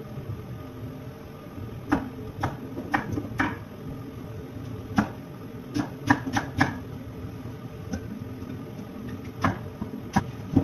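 Kitchen knife cutting onions on a wooden cutting board: irregular sharp knocks of the blade striking the board, several close together near the middle.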